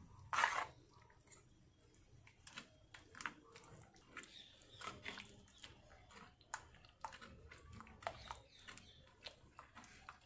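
Ladle stirring thick sarson ka saag in a steel kadai: faint, irregular wet squishing and scraping strokes as the cornmeal slurry is worked in to thicken the greens.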